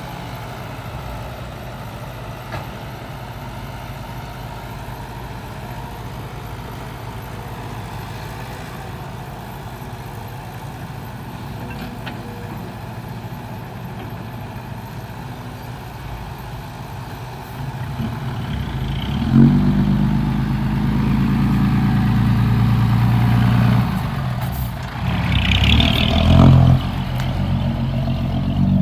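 Diesel engines of a crawler excavator and a six-wheel dump truck running steadily while sand is loaded. About 18 seconds in, the Hino dump truck's diesel engine revs up loudly as it pulls away under a full load of sand, with a short air hiss and another hard rev near the end.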